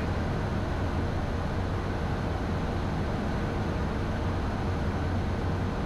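Steady cockpit noise of a Beechcraft Premier I twin-turbofan business jet in flight: airflow and engine drone with a strong low hum, unchanging throughout.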